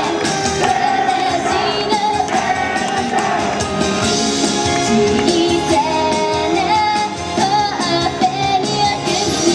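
Japanese idol pop song performed live: two girls singing over a loud backing track with a steady beat.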